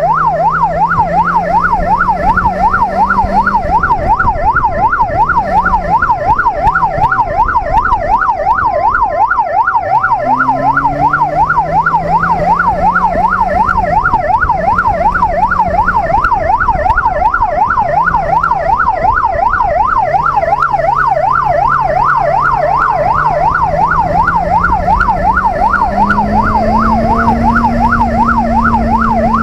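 Electronic siren on a police motorcycle sounding a rapid up-and-down yelp without a break. Beneath it, the bike's 600cc inline-four engine rises in pitch and drops back several times through gear changes, then holds a steady, higher note near the end.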